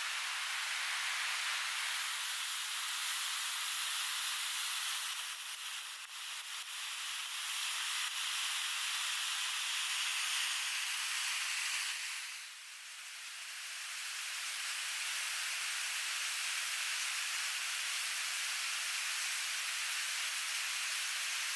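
River rapids rushing over rocks: a steady hiss of running water that dips briefly once about halfway through.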